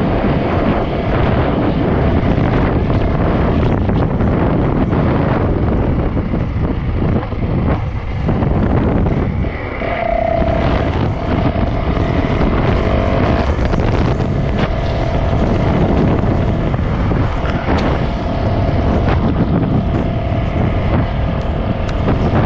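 A 450 dirt bike's single-cylinder four-stroke engine running while riding along a dirt road, under heavy wind buffeting on a helmet-mounted microphone.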